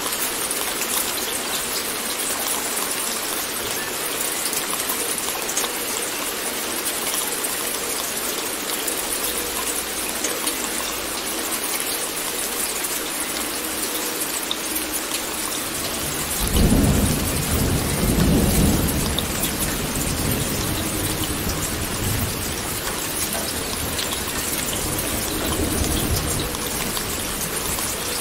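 Steady rain hissing throughout. About sixteen seconds in, a low rumble of thunder rolls in, swells for two or three seconds and then fades back under the rain.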